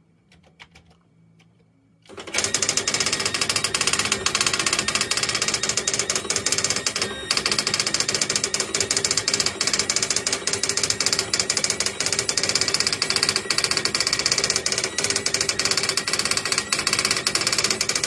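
Commodore DPS-1101 daisy wheel printer printing: its hammer strikes the wheel's characters in a very loud, fast, continuous clatter. The clatter starts about two seconds in, after a near-quiet pause, and breaks off briefly about seven seconds in.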